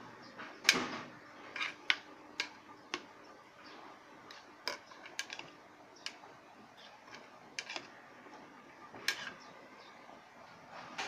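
A metal spoon stirring a stew in an aluminium pot, clinking and knocking against the pot's side and rim at irregular moments, the loudest about a second in.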